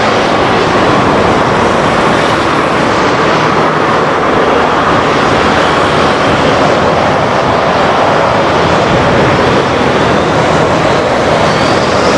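Airbus A320-214's CFM56 jet engines running as the airliner rolls along the runway, a loud, steady rush of noise. Near the end a rising whine comes in as the engines spool up for the take-off.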